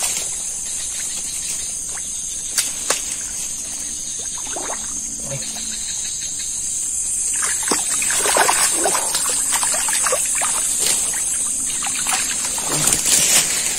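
A steady high-pitched chorus of night insects, with a few sharp clicks early on and, from about halfway through, small irregular splashes and trickling water.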